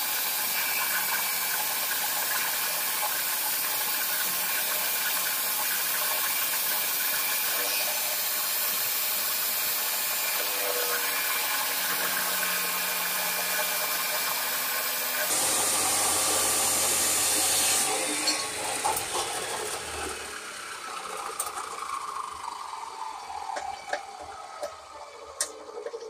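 Ridgid abrasive chop saw cutting through a rusty steel piece clamped in its vise: a steady grinding hiss, louder and deeper for a few seconds as the cut finishes. The trigger is then released and the motor's whine falls steadily as the blade spins down, with a few light clicks and knocks near the end.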